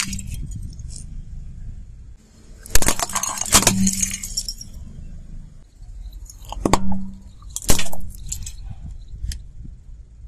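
Car tyre rolling over small brittle plastic toys on asphalt, crushing them with sharp cracking and snapping crunches in several bursts, over the low rumble of the tyre rolling.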